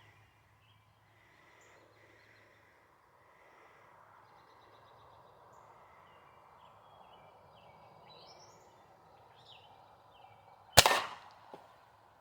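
A single shot from a Ruger pellet rifle near the end, one sharp crack, followed about three-quarters of a second later by a faint knock. Before the shot it is quiet, with faint bird chirps.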